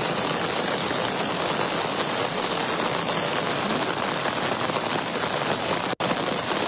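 Heavy rain and floodwater rushing down a flooded street: a steady, dense hiss that drops out for an instant about six seconds in.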